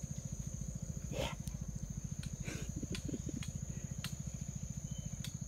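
Steady high-pitched insect drone over a rapid low pulsing hum, with a few faint ticks scattered through.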